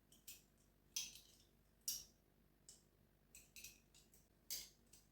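Faint, irregular light clicks and taps of kitchen utensils being handled, about eight in five seconds.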